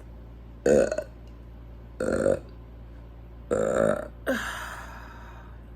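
A woman burping: four short burps spaced roughly a second apart, the last one trailing off.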